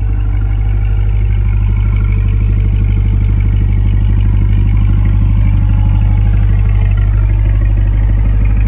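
2022 Chevrolet Corvette C8's 6.2-litre V8 idling steadily with an even low exhaust pulse, growing a little louder in the first few seconds.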